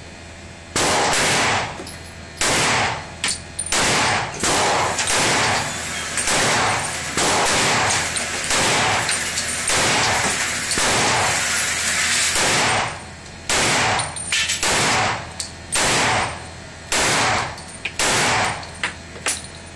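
Semi-automatic pistol fired repeatedly, a steady string of sharp, loud shots about every half second with a few short pauses. Each shot echoes in the enclosed range.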